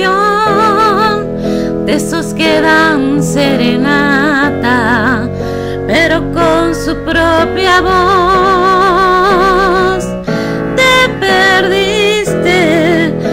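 A woman singing a slow Spanish-language ballad with wide vibrato over a karaoke backing track with piano or keyboard.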